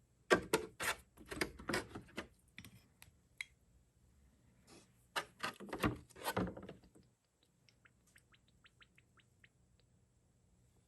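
Small parts handled on a workbench, clattering and knocking in two short bursts, followed near the end by a quick run of about a dozen light, even ticks.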